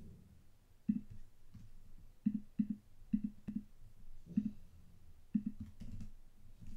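A dog barking over and over in short barks, often two in quick succession.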